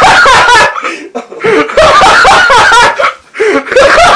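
Loud laughter in three long bursts with short breaks between them.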